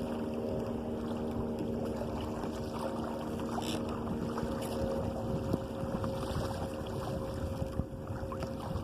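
Water and wind rushing past an open sailing canoe under way, with a steady low hum underneath that fades about five seconds in.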